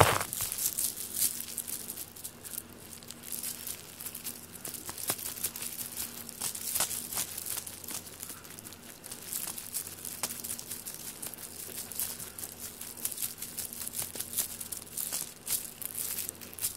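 Irregular rustling, crackling and scratching as a cat grips and chews a fabric string toy, with the cord dragging and being tugged across a foam floor mat.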